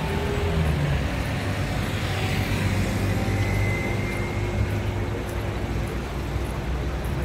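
Steady road traffic noise from cars on a busy city street, a continuous rumble with no single event standing out.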